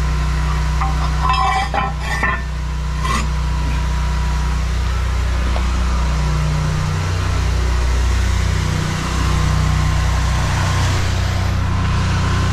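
Metal stormwater drain grate clanking as it is set back into its concrete pit frame, a few sharp clinks between about one and three seconds in. An engine idles steadily underneath throughout.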